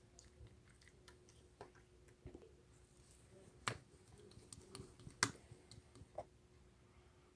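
Scattered faint clicks and taps, with two sharper, louder clicks just past the middle, over a faint steady hum.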